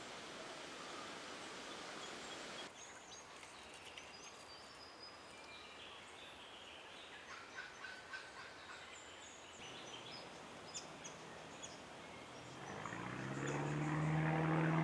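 Wild birds in forest giving scattered short, high chirps, then a loud low buzz that rises in pitch and grows louder near the end.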